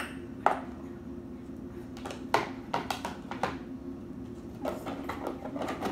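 Plastic lid and plastic bowl being handled: several sharp knocks and clatters, one about half a second in, a few in the middle and a cluster near the end, over a steady low hum.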